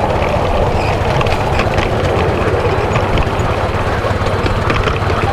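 7¼-inch gauge miniature steam locomotive running along its track, heard from on board: a steady mix of running noise with scattered light clicks from the wheels on the rails.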